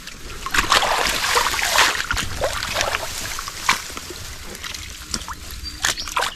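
Water splashing and sloshing as fish from a freshly lifted trap are tipped into a container. The splashing is heaviest in the first two seconds, followed by scattered knocks and smaller splashes.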